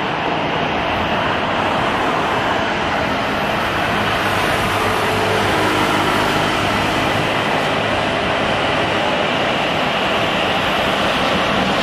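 Jet engines of a Boeing 737 airliner on landing approach: a steady, rushing engine noise that grows slowly louder as the plane nears.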